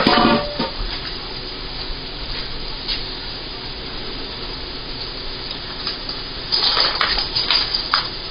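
Sliced onions sizzling in olive oil and butter in a non-stick frying pan, a steady hiss. A brief clatter right at the start and louder clattering, with a few sharp clicks, near the end.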